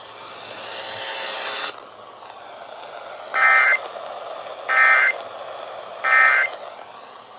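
Emergency Alert System end-of-message signal: three short, identical bursts of warbling digital data tones about a second and a half apart, over a steady radio hiss that is louder for the first second and a half or so.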